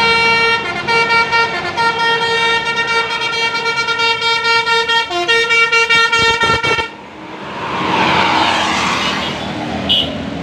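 Bus's Basuri telolet multi-tone horn playing a tune of held notes that steps between chords a few times, then cuts off suddenly about seven seconds in. A rushing noise follows, with a brief high tone near the end.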